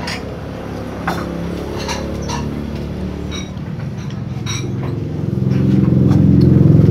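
Metal spoon and fork clinking and scraping against a bowl of bakso, a dozen or so sharp clinks. Underneath runs a low droning hum that swells to its loudest near the end.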